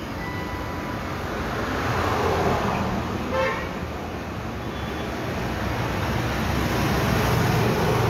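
Road traffic going past, swelling as vehicles pass, a truck among them near the end, with one short vehicle-horn beep about three and a half seconds in.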